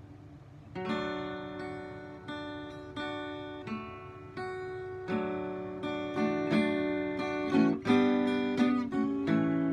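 Solo acoustic guitar playing a strummed chord introduction. The chords begin about a second in and ring between strokes, and the strokes come closer together and louder toward the end.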